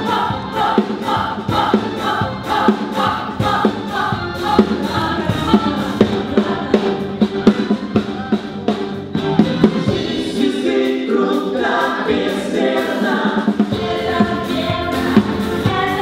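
Musical-theatre song: a group of voices singing a pop-style number over a band with a steady drum beat.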